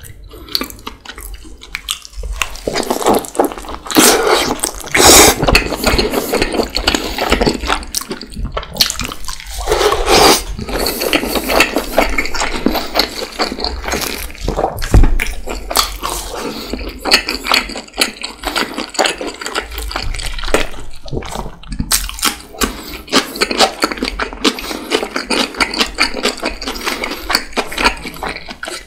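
Close-miked wet chewing and slurping of a juicy lamb dumpling and bread, with dense mouth clicks and smacks and louder wet bursts now and then.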